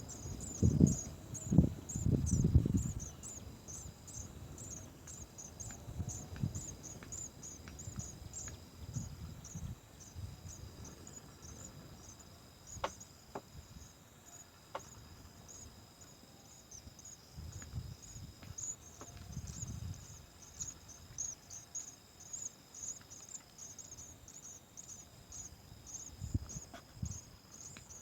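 Insects, cricket-like, chirping in a steady high-pitched pulse of about three or four chirps a second. Loud low rumbling bumps come in the first three seconds, with a few faint clicks later.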